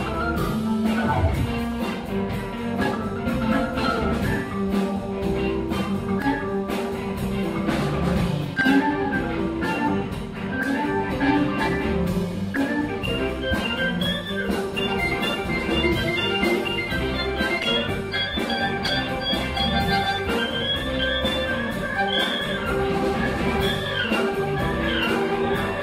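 Live band playing an instrumental stretch of a Latin-rock groove, with steady drums and bass. About halfway through, a high lead line comes in above it, bending and winding.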